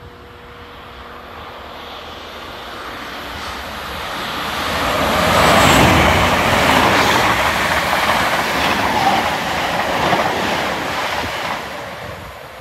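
Royal Mail Class 325 electric mail train passing through at speed: its rushing noise builds over several seconds, is loudest about six seconds in with rapid wheel clatter over the rail joints, then fades as the train runs away.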